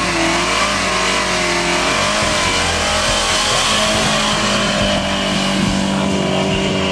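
1974 Dodge Dart's engine running loud, its pitch wavering up and down as it is revved.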